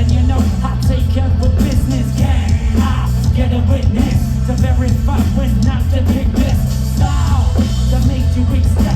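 A rock band playing loud, heavy music live, with pounding bass and drums under a singer's voice.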